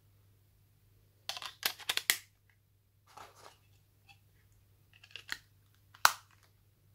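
Plastic clicks and clatter as the battery is pressed into a Nokia 3410 mobile phone and the back cover is fitted on, with one sharp snap about six seconds in.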